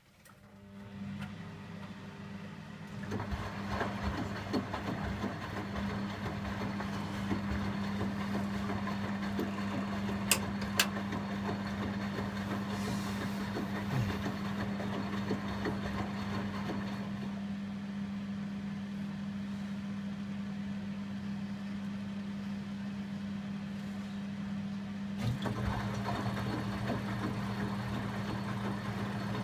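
Indesit 092 washing machine running an empty 95 °C cotton wash: a steady motor hum starts about a second in, with the drum tumbling over it. The tumbling stops about two-thirds of the way through and starts again near the end, while the hum carries on.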